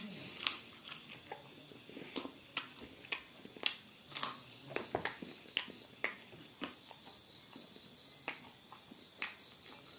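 Close-miked chewing of crisp fried food: irregular crunches and wet mouth clicks, several a second at first, thinning out near the end.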